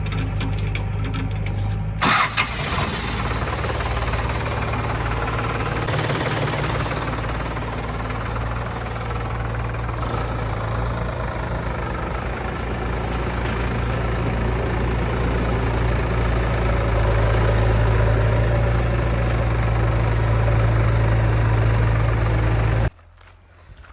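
Diesel engine of a tractor-type heavy machine running steadily, with one sharp knock about two seconds in. It gets a little louder in the second half, then cuts off abruptly near the end.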